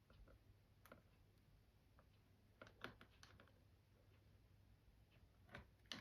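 Near silence with a few faint, scattered clicks and taps from small plastic tubs being handled.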